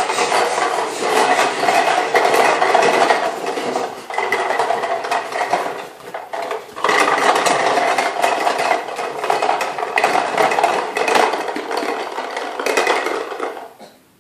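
Push lawnmower rattling and clattering as it is rolled along. The rattle eases off briefly about six seconds in, picks up again, and stops shortly before the end.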